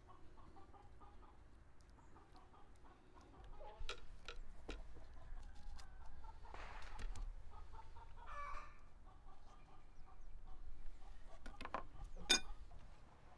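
Domestic hens clucking repeatedly in the background, with a few sharp clicks and scrapes of a knife and utensils against a plate. The sharpest click comes near the end.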